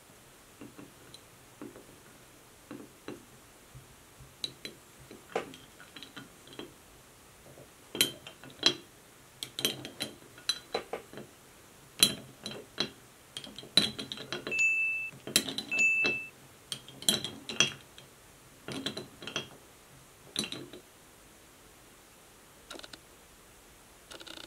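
Metal corkscrew and glass bottle clinking and knocking as they are handled, a run of irregular taps and clicks that grows busier and louder toward the middle, with two brief high-pitched squeaks.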